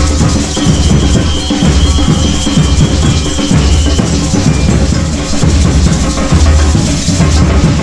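Samba batucada drum group playing a dense, steady groove: deep surdo bass drums under snare-like caixa and smaller hand percussion. A high steady tone sounds over the drums for about three seconds in the first half.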